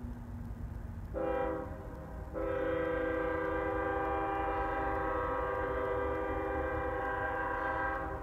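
Locomotive horn sounding a short blast, then a long steady blast that stops just before the end, over a steady low rumble.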